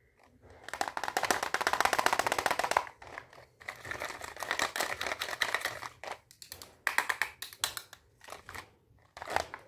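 Hard plastic toy fruit, toy knife and woven plastic basket being handled, with rapid clicking and rattling: a dense run of clicks about a second in, then shorter bursts of clatter.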